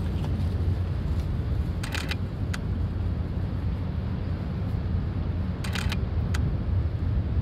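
Steady low rumble of wind buffeting a phone microphone, with a few short clicks about two seconds in and again near six seconds.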